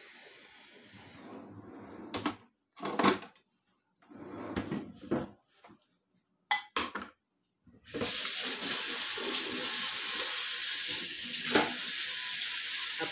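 A few short knife strokes and knocks on a plastic cutting board as a cucumber is trimmed, then about eight seconds in a kitchen tap is turned on and water runs steadily into a stainless steel sink while a knife is rinsed under it, with one sharp clink near the end.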